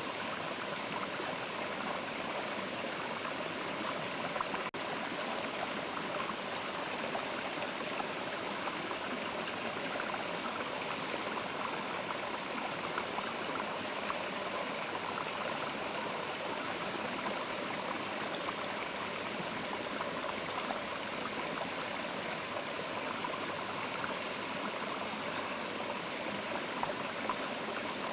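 Mountain river flowing: a steady, unbroken rush of water, with a split-second gap in the sound about five seconds in.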